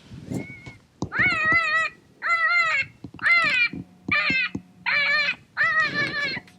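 Predator call playing a repeated distress cry to lure coyotes: six high, wavering cries, each under a second long and about a second apart, after a fainter one near the start.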